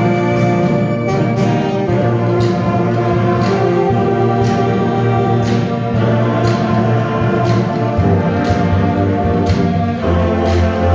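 Marching band playing: sustained brass chords over a steady percussion beat, with the low brass growing stronger near the end.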